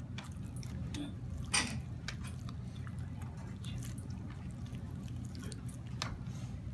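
Raw chicken skin being peeled off a leg by hand: faint, irregular wet squishing, with a sharper click about one and a half seconds in and again near the end, over a steady low room hum.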